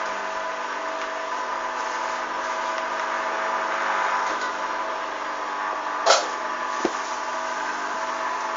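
Hoover DYN 8144 D front-loading washing machine running with a steady motor hum, with a sharp knock about six seconds in and a lighter one just after.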